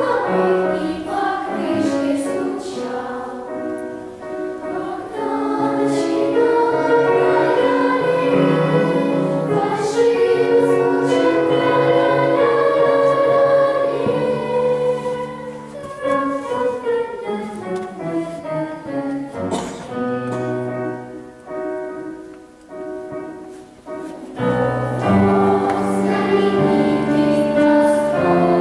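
Junior children's choir singing a song in unison and parts, with a softer, quieter passage a little over twenty seconds in before the full sound returns.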